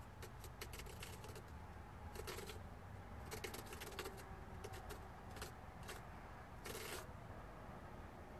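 Small pumpkin-carving tool cutting into a pumpkin: a run of short clicks and scrapes, with longer scraping strokes about two, three and a half, and seven seconds in, over a low steady hum.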